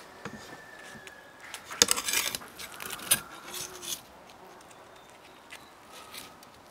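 Kitchen knife scraping and clinking against a metal skewer as grilled potato slices are pushed off onto a wooden cutting board, with a cluster of sharp clinks and scrapes about two seconds in and a few more up to about four seconds in.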